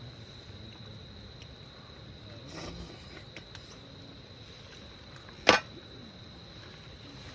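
Steady high-pitched trill of crickets, with one sharp click about five and a half seconds in.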